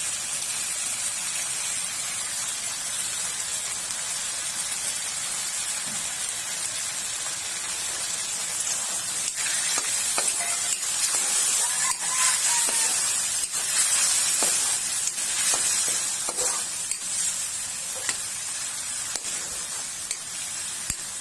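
Sardines in tomato sauce sautéing with garlic and onion in a pan, sizzling steadily while a spatula stirs and scrapes the pan now and then. The sizzle grows a little louder in the middle.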